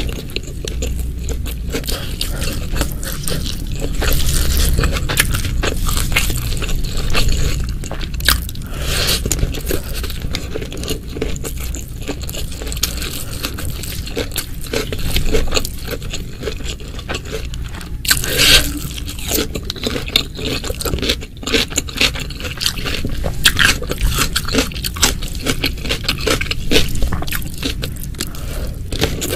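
Close-miked eating: crunchy chewing and biting, with scraping on the plate and many sharp crackles throughout, and a louder crunch at about 18 seconds in.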